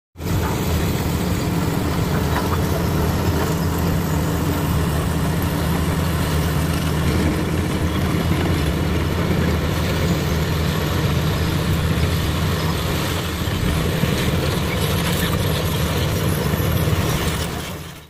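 Komatsu D85 crawler bulldozer's diesel engine running steadily under load as the dozer pushes broken rock and soil with its blade. It fades out near the end.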